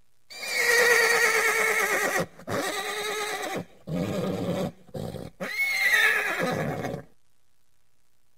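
Horse whinnying: a long wavering whinny, a few shorter calls, then a second whinny that rises and falls.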